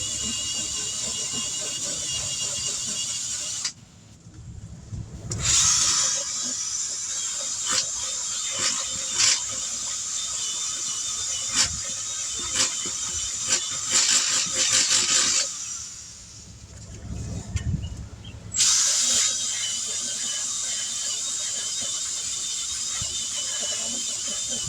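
A power tool running with a high-pitched whine in three stretches, stopping twice with short pauses, with scattered clicks and scraping in the middle stretch. This is typical of a drill-driven tool buffing the inside of a tire around a puncture before a patch goes on.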